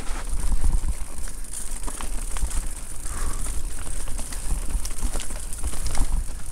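Electric mountain bike riding fast down a rough enduro trail: a steady rumble with a hiss over it, and frequent short clicks and knocks as the bike rattles over the ground.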